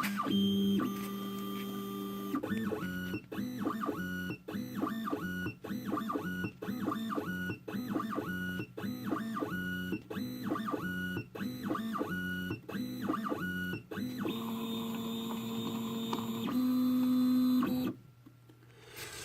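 V8/X6 key machine's stepper motors whining as the probe traces the cuts of a Toyota edge-cut key, the pitch stepping with each move and pausing about once a second. Near the end comes a longer steady run, then the motors stop.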